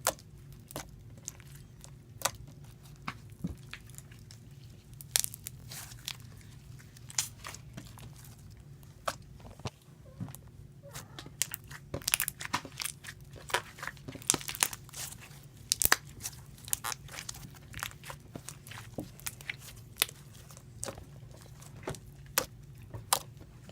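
Slime being squeezed and poked close to the microphone, making irregular sharp pops and crackles that come thicker in the second half.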